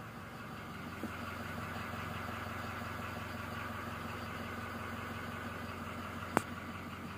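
Toyota Fortuner's engine idling, a steady hum heard from inside the cabin. A small click about a second in and a sharper click near the end.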